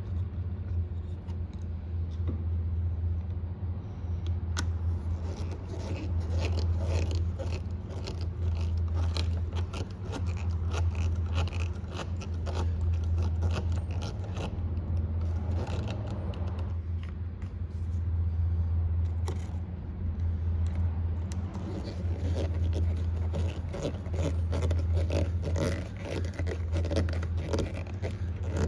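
Hand work on a car's blower motor resistor as it is refitted: irregular scraping, scratching and clicking, typical of a Phillips screwdriver turning screws and the part being handled. A steady low hum runs underneath.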